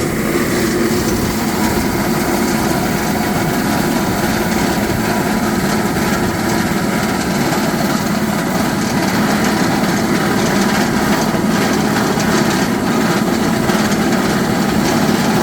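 Hard-rock drilling rig running steadily, a continuous even mechanical drone.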